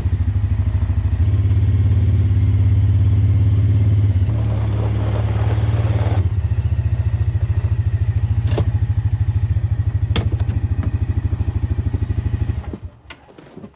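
Side-by-side UTV engine idling steadily with an even low pulsing, shut off about twelve and a half seconds in. Two short sharp clicks come over it in the second half.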